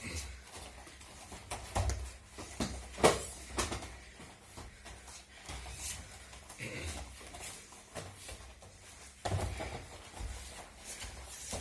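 Scattered thumps and sharp slaps at irregular intervals, loudest about three seconds in and again about nine seconds in, consistent with aikido practitioners stepping and falling on training mats.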